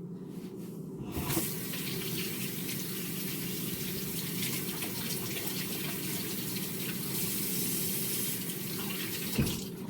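Kitchen tap running, with water splashing over lettuce leaves as they are rinsed in the sink. The water starts about a second in and stops near the end.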